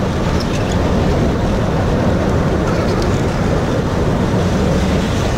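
Steady low rumble of the Sóller tram running along its track, heard from on board at an open side window.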